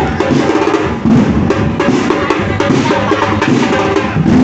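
A street drum group playing a steady, busy rhythm on slung drums, with sharp stick strikes and deep bass-drum beats.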